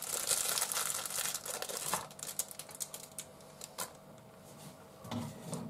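Clear plastic food bag crinkling as it is handled for about two seconds, then a few scattered light clicks and taps.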